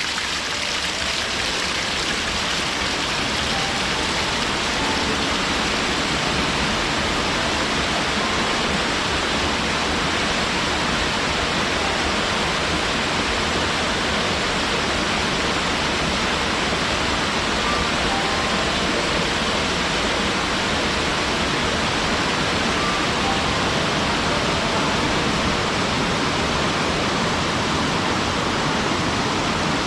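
Mountain waterfall pouring steadily into its pool: an unbroken, even rush of falling water.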